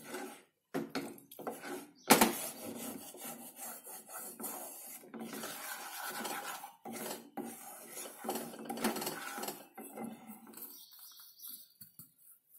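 Wooden spatula scraping round a nonstick pan, stirring besan (gram flour) cooking in ghee in repeated strokes, with a sharp knock about two seconds in; the stirring dies away near the end.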